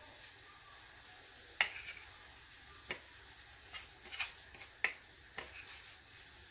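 About half a dozen faint, irregular light clicks and taps as hands work raw chicken pieces in a flour coating on a ceramic plate.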